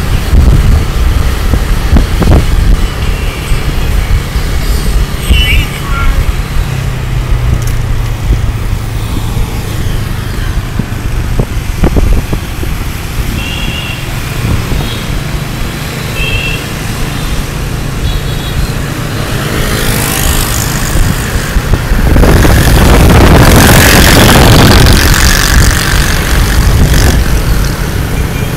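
Wind buffeting the microphone over a motorbike engine and road noise while riding. A few brief high beeps come through, and the rush of wind grows louder for several seconds about two-thirds of the way through.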